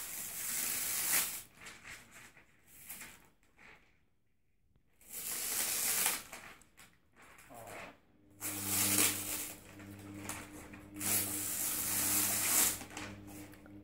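Paper rustling and crinkling in bursts as the protective backing is worked and peeled off an iron-on transfer sheet. From about eight seconds in, a low steady hum runs underneath.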